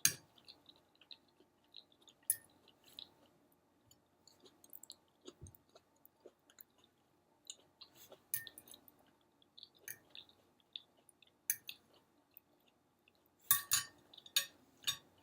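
Close-up chewing of a soft bagel sandwich with scrambled egg: soft wet mouth clicks and smacks scattered throughout, with a cluster of louder smacks near the end.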